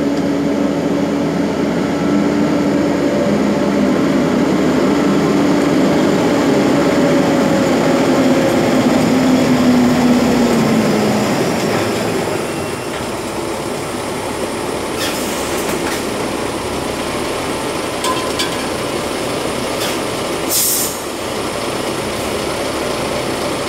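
Shacman X3000 truck's diesel engine running as the truck creeps forward. A steady whine falls away about ten seconds in, leaving the engine running at low revs. There are short sharp air hisses near the middle and near the end, the loudest about three seconds before the end.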